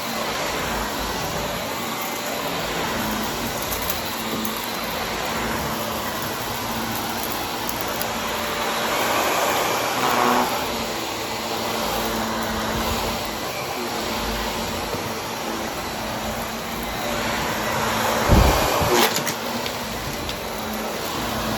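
Vacuum cleaner running with its brushroll spinning, a steady drone with a couple of louder knocks about eighteen seconds in.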